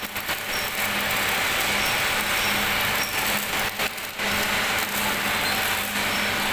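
Electric arc welding on a steel joint: a steady crackling hiss from the arc, with a faint machine hum underneath and a brief break about four seconds in.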